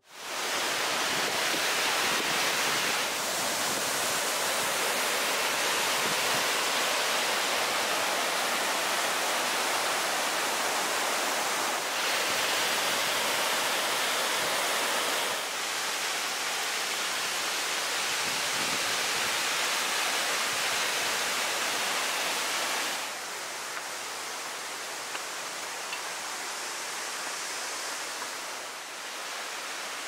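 Nachi Falls, a tall waterfall, as a steady rush of falling water. It shifts in level a few times and drops noticeably about three quarters of the way through.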